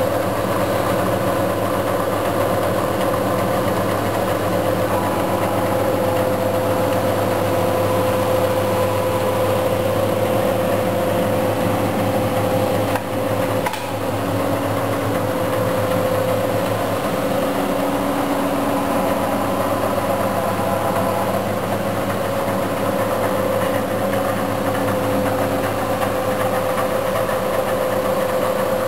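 Shop machinery running steadily: an even mechanical hum with a held mid-pitched whine, dipping briefly about halfway through.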